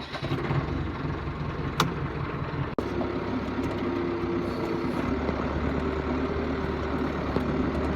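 Farm tractor's diesel engine running steadily just after starting. About five seconds in, the low engine note gets heavier.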